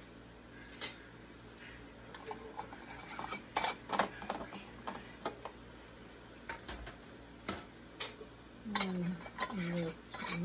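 Scattered clinks and knocks of glass canning jars and their metal lids and screw bands being handled, with a filled jar lifted and lowered into an enamel water-bath canner. The clinks come in clusters about three and a half seconds in and again near the end.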